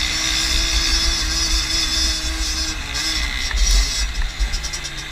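Small 50cc moped engines running at a steady high note as the bikes ride a dirt track, with heavy wind buffeting on the microphone. The engine note dips briefly about three seconds in.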